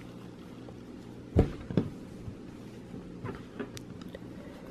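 A few light knocks and rustles from hands handling a crocheted headband on a wooden tabletop, the loudest about a second and a half in, over a faint steady hum.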